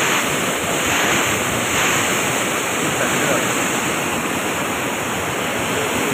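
Muddy floodwater rushing and churning through a concrete dam channel: a loud, steady rush of white water.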